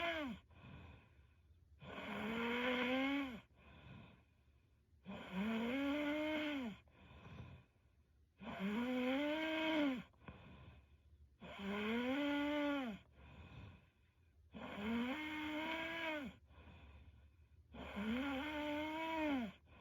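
A young woman snoring steadily in her sleep, about six snores in a regular rhythm, one roughly every three and a half seconds. Each snore is a pitched, drawn-out sound that rises and then falls in pitch, with a fainter breath between snores.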